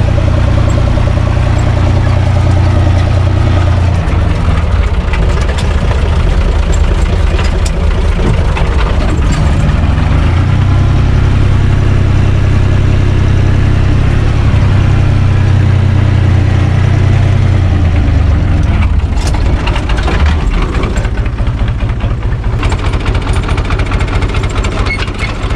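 UTB 445 DT 4x4 tractor's four-cylinder diesel engine running loudly, heard from the cab, its note dropping about four seconds in and rising again around ten seconds. After about 18 seconds it settles to idle, and a few sharp metal clanks from the drawbar and hitch chain sound near the end.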